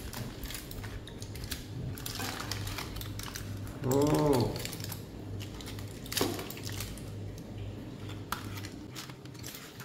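Aluminium foil crinkling and crackling in irregular snaps as it is pulled open by hand from around a cooked steak. A short hum of a voice about four seconds in, over a steady low hum.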